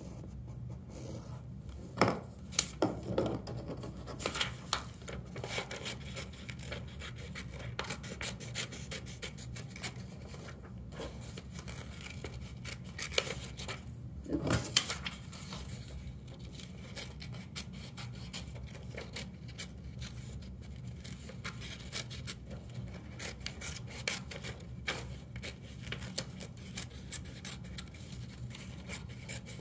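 Scissors cutting construction paper: a run of irregular short snips and paper rustling, with a few sharper clicks. A low steady hum sits underneath.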